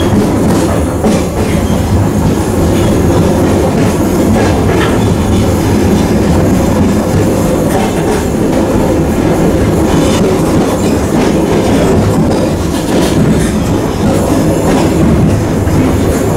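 ER2T electric multiple-unit car running along the track, heard from inside its vestibule: a steady, loud rumble of wheels on rail and car body, with a few faint clicks scattered through it.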